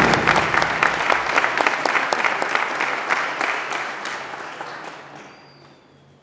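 Audience applauding, the clapping thinning out and fading away over about five seconds.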